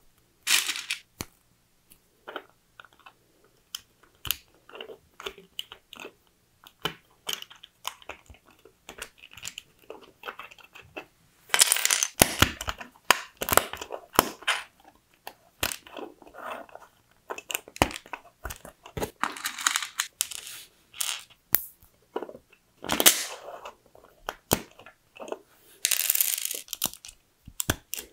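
LEGO bricks and Technic pins, axles and a gear being snapped and pressed together by hand, a run of sharp plastic clicks, with several longer bursts of rattling from loose plastic parts being handled.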